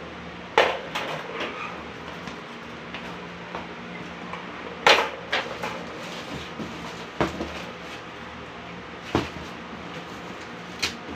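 Folded wire pet cage being handled: its metal wire panels clank and rattle against each other and the plastic tray in about five separate sharp knocks, the loudest about five seconds in.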